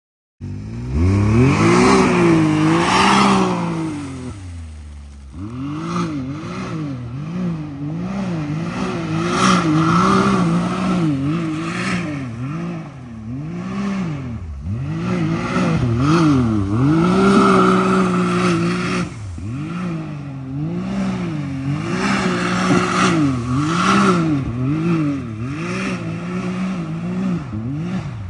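Can-Am Maverick X3 side-by-side's engine revving up and falling back over and over, about once every second or two, as it is driven hard, with a deeper drop in revs about four seconds in.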